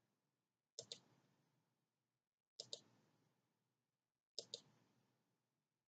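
Computer mouse clicking three times, about two seconds apart, each click heard as a pair of quick ticks, over near silence.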